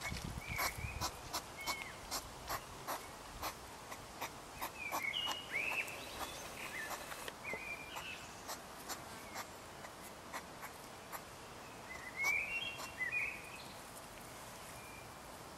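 European hedgehog making a run of sharp, irregular clicking and smacking sounds close by, thinning out after about seven seconds. Small birds chirp in short bursts, most loudly about twelve seconds in.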